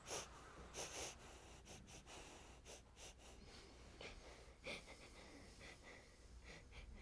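Near silence with a few faint, short breaths from a person, one near the start, another about a second in and one just before the end.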